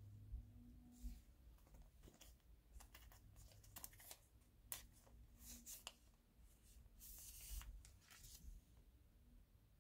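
Faint rustling and crinkling of a foil bromide packet and glossy photo prints being handled, with short scratchy swishes throughout and a longer crinkle about seven seconds in as a photo is slid out of the packet.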